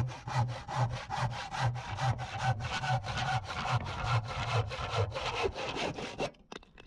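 Irwin handsaw cutting through a piece of 3x2 timber, a steady run of even back-and-forth rasping strokes, a little over two a second. The sawing stops shortly before the end as the block is cut through.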